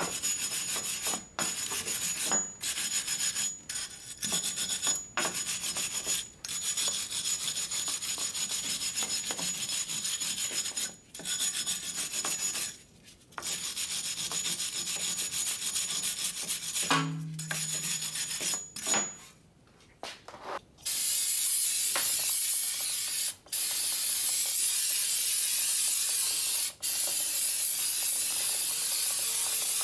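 Wire brush scrubbing rust off a steel front wheel hub flange, in irregular strokes with short pauses. About two-thirds of the way through it gives way to a steady aerosol spray hiss, briefly interrupted twice, as the hub is washed down with cleaner.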